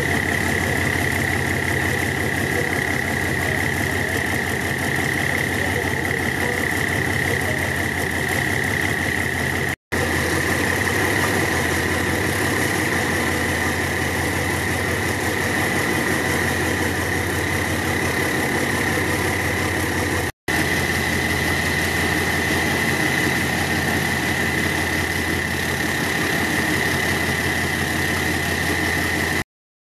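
Alsthom diesel-electric locomotive's diesel engine running steadily, with a steady high whine over the engine note. The sound drops out briefly three times.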